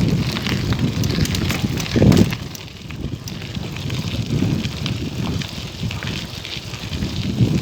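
Wind buffeting the microphone in uneven gusts, with scattered light crackles over it.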